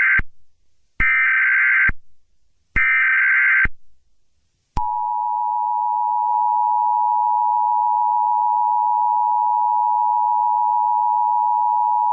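Emergency Alert System alert tones: the rasping data bursts of a SAME header, three short bursts less than two seconds apart. Then, about five seconds in, the steady two-tone EAS attention signal begins, the signal that announces an emergency broadcast message.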